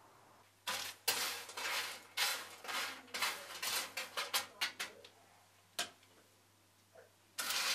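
Kitchen utensils clinking and scraping against dishes in a quick run of short clatters that starts about a second in, then a single click, and a longer clatter near the end.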